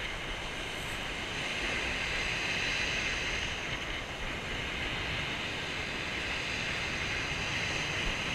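Surf breaking and washing on a shingle beach in strong wind, a steady rushing noise with wind buffeting the microphone.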